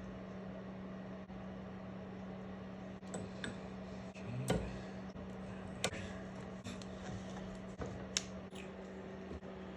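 A handful of short, sharp clicks and knocks as small parts and tools are handled during dropper-post reassembly, over a steady low hum.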